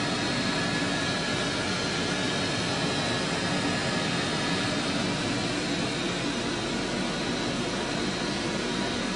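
Vehicle heater fan blowing steadily inside the cab, with a faint steady high whine over the rush of air.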